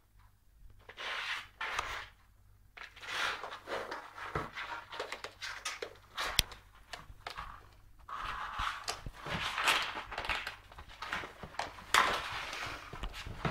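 Cardboard carton scraping and sliding across a tiled floor as a cat shoves it along with its head, with scuffing paws and a few sharp knocks as the box bumps into things. The loudest knocks come about six and twelve seconds in.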